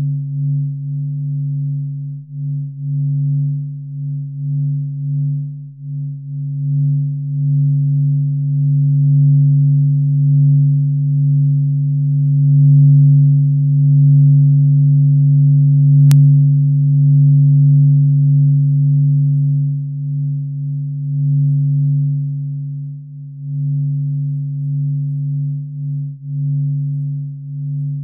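Filtered 'sound of the Sun' audio: a low, droning hum that swells and fades in loudness, with fainter higher tones above it. A single sharp click comes about sixteen seconds in.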